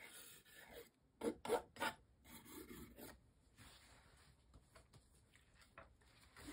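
Metal palette knife scraping and spreading paint across a textured canvas in short rasping strokes, three sharper ones close together about a second in, then only faint rubbing.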